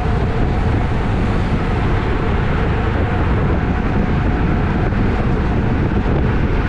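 Steady rush of wind over a bicycle-mounted GoPro's microphone while riding at racing speed in a road-race bunch, loud and unbroken.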